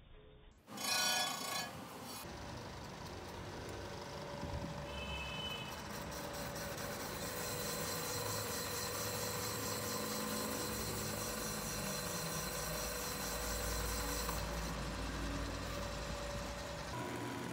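Cylinder boring machine boring out an engine block's cylinder: a steady machine run with the scrape of the cutter in the bore. About a second in there is a brief, louder ringing tone.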